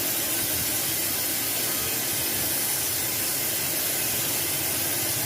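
Steady hiss of a profile cutting machine's cutting torch, running evenly without a break.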